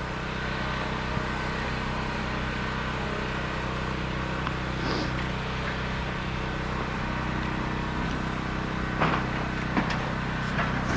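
Engine idling steadily, with a few faint knocks about nine seconds in.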